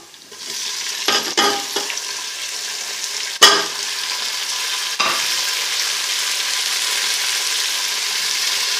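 Chopped tomatoes hitting hot oil with browned onions and ginger-garlic paste, setting off a hiss of sizzling that turns steady and a little louder about five seconds in. A few knocks against the metal pot in the first two seconds, and one sharp clack about three and a half seconds in, the loudest sound.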